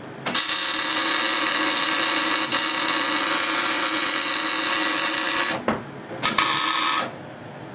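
Wire-feed (MIG) welder arc crackling steadily as a bead is run on the differential spider gears to weld them to the carrier. The first bead lasts about five seconds, then a second, shorter burst of welding follows.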